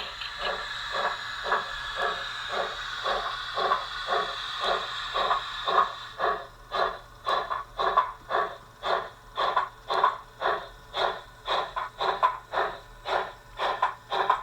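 Model locomotive sound decoder playing through a small speaker: even, chuff-like beats about two a second, over a steady hiss that fades after about six seconds, leaving the beats sharper and more separate.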